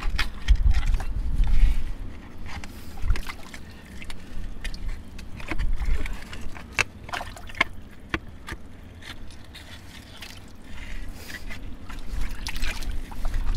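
A shovel working in a flooded, muddy pit: water sloshing and splashing around the blade, with scattered sharp scrapes and clicks as it meets soil and debris. There is a low rumble during the first two seconds.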